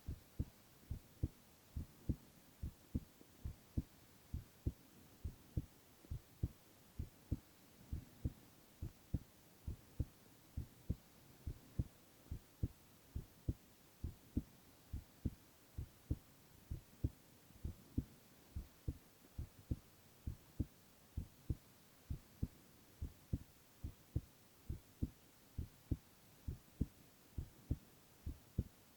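A young man's heartbeat picked up close: a steady run of paired low thumps, lub-dub, over a faint hiss.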